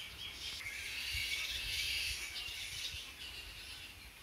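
Outdoor ambience of birds chirping in the trees, with a low rumble of wind on the microphone.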